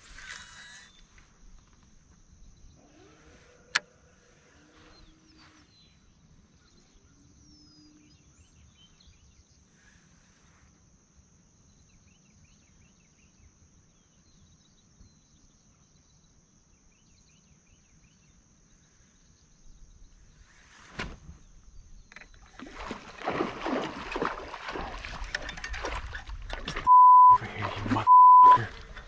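Faint stillness with a steady high whine, then from about three-quarters of the way in a rising commotion of water splashing around a kayak. Near the end it is cut twice by short, loud single-tone censor bleeps.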